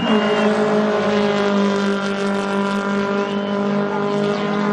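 Fiat 126 race car's engine running hard at an even, steady pitch as the car drives along the course.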